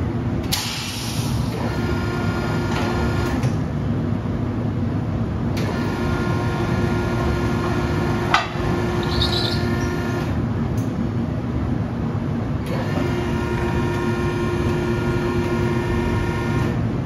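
Vacuum-forming thermoformer running, its sheet clamp-frame carriage travelling on overhead rails into the oven. A steady mechanical hum, with a drive whine that sets in and stops three times, and one sharp click about eight seconds in.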